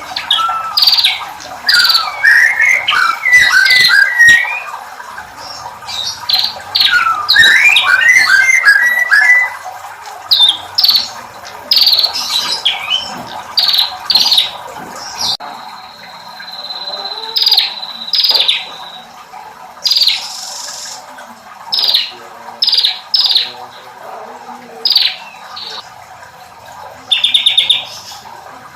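A prenjak (prinia) singing in a loud, varied run of sharp repeated chips and fast twittering trills, with a held high whistle partway through and a buzzy rattle near the end. The song is filled with female prenjak calls strung together with ciblek phrases.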